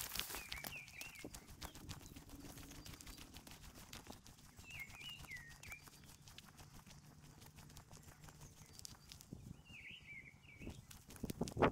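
Footsteps crunching along a path, with a small bird singing three short warbling phrases about five seconds apart. The steps get louder just before the end.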